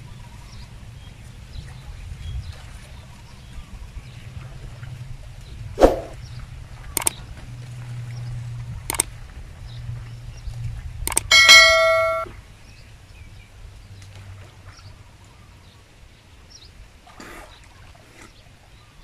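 A few sharp clicks, then a short bell-like ding about two-thirds of the way through: the sound effects of an edited-in subscribe and notification-bell animation. A low steady hum runs underneath.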